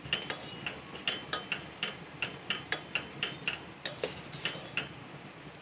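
A metal spoon stirring thickening milk in a steel saucepan, clinking against the pan about three or four times a second, each click with a short metallic ring.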